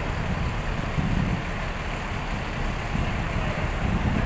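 Diesel engine of a large intercity coach running with a steady low rumble, swelling slightly about a second in and again near the end.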